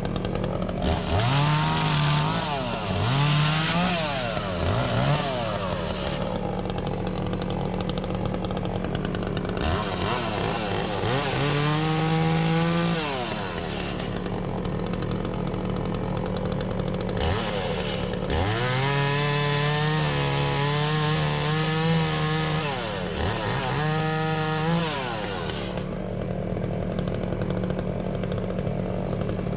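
Echo CS-400 two-stroke chainsaw revving up from idle again and again, with short blips and longer held runs at high speed as it cuts into logs. A steady engine hum runs underneath.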